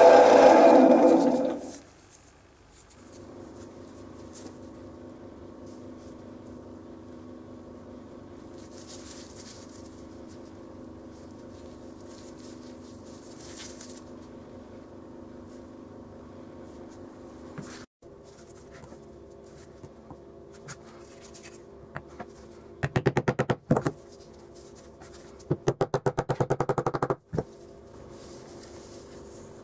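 Bench drill press motor running loudly, cutting off about two seconds in. A faint steady hum follows, with two short bursts of rapid scratching near the end.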